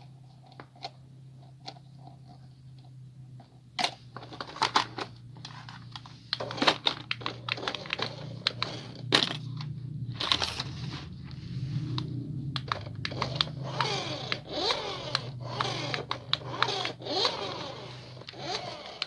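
Toy packaging being handled and opened: sharp clicks and taps at first, then from about four seconds in busy crinkling, tearing and scraping of plastic and cardboard.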